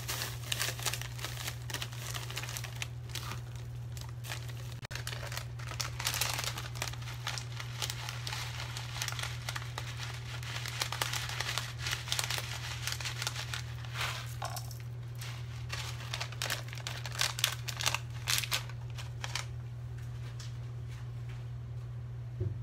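Plastic seasoning sachets crinkling as they are handled and torn open over a pot of fish, in dense irregular bursts that die away a few seconds before the end. A steady low hum runs underneath.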